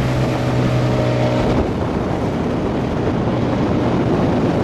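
A small motorboat's outboard motor running under way, with water rushing past the hull and wind on the microphone. A steady engine tone is clear at first, then about one and a half seconds in it gives way to a rougher wash of wind and water noise.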